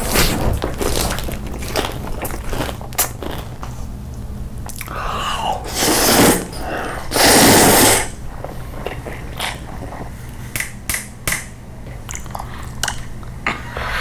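Close-miked eating: crunchy biting and chewing with many short sharp crunches. About seven seconds in there is a louder rushing noise lasting about a second.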